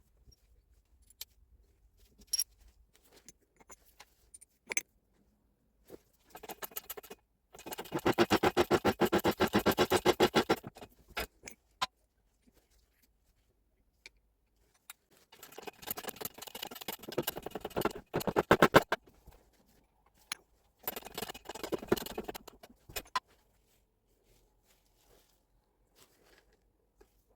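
Three bursts of rapid, evenly spaced metallic rattling, with scattered clinks and clicks of metal parts between them.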